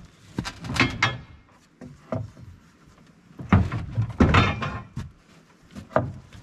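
Irregular knocks and clunks of hard objects being handled, a few single ones with a louder cluster of bangs a little past the middle.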